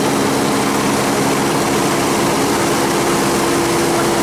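Aircraft engine and propeller drone heard from inside the cabin: a steady hum under a constant rush of air noise.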